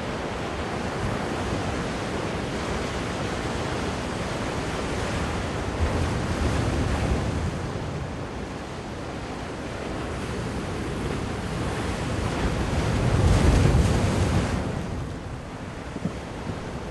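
Ocean surf breaking and washing up a sandy beach, with wind buffeting the microphone. The rushing noise swells twice, the loudest surge about thirteen seconds in.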